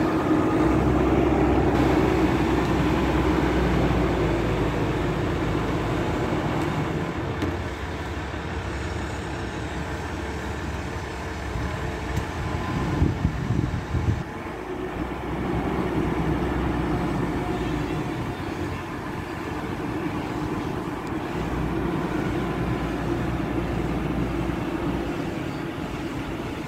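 16-ton diesel forklift's engine running as it drives with a heavy load, the sound swelling and fading as it moves, with a few sharp knocks about 13 seconds in.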